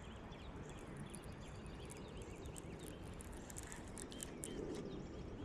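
Faint outdoor ambience: small birds chirping many times in quick short calls over a steady low rumble, with scattered light clicks in the middle.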